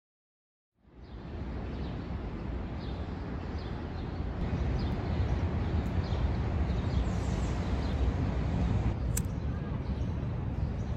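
Outdoor city park ambience: a steady low rumble with birds chirping faintly now and then, starting after a second of silence. A single sharp click about nine seconds in.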